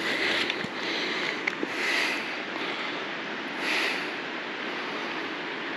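A hiker breathing hard through the nose and mouth, a breath about every two seconds, over steady rustling from walking through thick brush.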